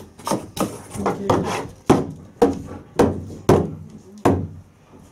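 A wooden-handled pet brush knocked repeatedly against a wooden sliding door, about eight uneven knocks roughly half a second apart.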